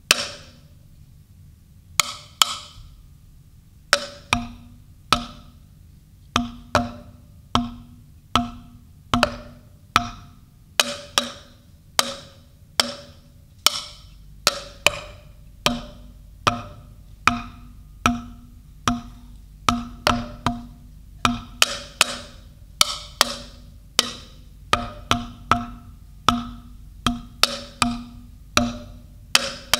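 Wooden percussion struck in a slow, uneven rhythm, about one to two hits a second, some in quick pairs. Each hit is a sharp woody knock with a short pitched ring.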